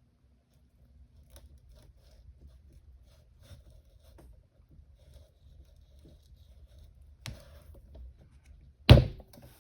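Small faint clicks and scrapes of a suction cup and tools being worked on an iPhone SE's screen to lift it, with one sharp, loud knock near the end.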